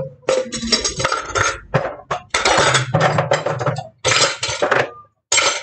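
Dishes and cutlery clattering and scraping against each other at a kitchen counter, in a run of short bursts with a few brief gaps.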